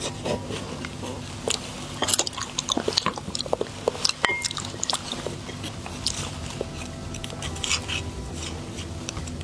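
Close-miked eating sounds: biting and chewing on beef bone marrow pieces in chili oil, with many scattered short, sharp clicks and smacks.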